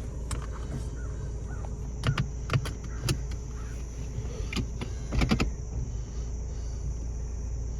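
A steady low engine hum, like a vehicle idling, under a steady high drone of insects, with a handful of sharp clicks and knocks from about two seconds in, the loudest cluster just past five seconds.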